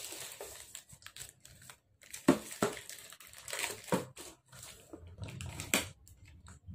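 Plastic courier mailer bag crinkling and rustling as it is handled and pulled open, with several sharp crackles of the plastic.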